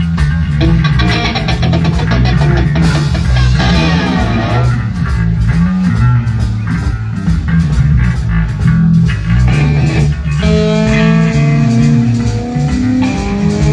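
Band music with no singing: guitar over bass and drums at a steady beat. In the last few seconds the guitar bends and slides its notes.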